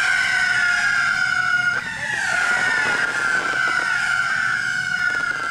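Whistling firework giving one long, loud, shrill whistle that slowly drops in pitch as it burns.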